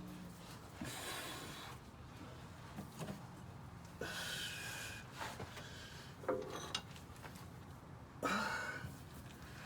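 A man breathing heavily with effort: three long breaths a few seconds apart, with a few light clicks in between.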